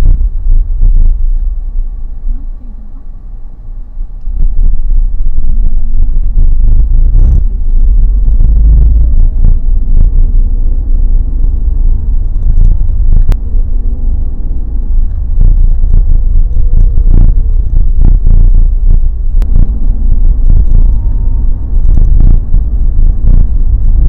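Car on the move, heard from inside the cabin: a steady low rumble of engine and tyres on the road, with scattered short knocks.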